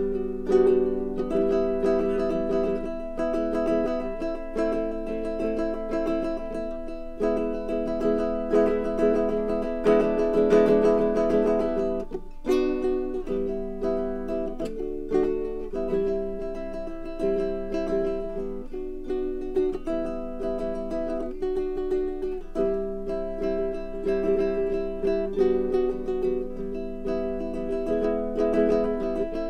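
Baritone ukulele playing a tune, its plucked notes changing about every second.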